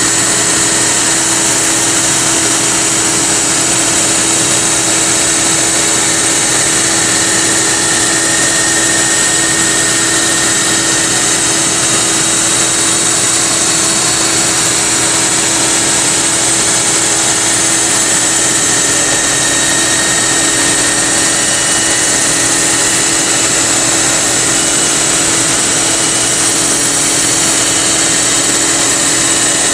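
Industrial grinding machine running steadily as its wheel grinds a metal bar fed past on roller guides: a constant hum under a strong, even high hiss.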